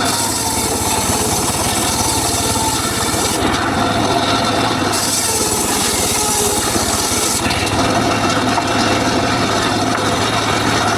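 Homemade circular saw cutting teak wood: a continuous rasping blade-through-wood noise over the steady hum of the saw's motor. The high hiss eases for a moment about three and a half seconds in, then picks up again.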